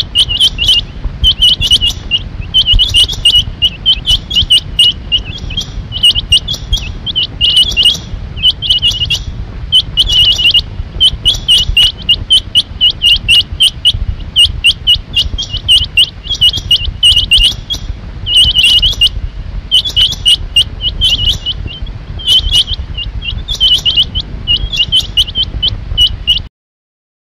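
Rain quail calling: loud, short, high metallic notes repeated in quick runs with brief pauses between runs, over a steady low background rumble. The calling cuts off abruptly near the end.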